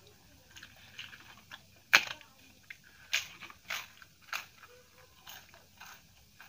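Crisp papadam being broken and crunched: a string of sharp crackles, the loudest snap about two seconds in.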